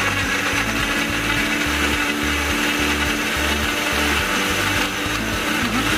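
Electric countertop blender running steadily, puréeing mango, carrots and milk into a shake; its hum dips briefly in pitch near the end and then picks up again. A steady low beat of background music sits underneath.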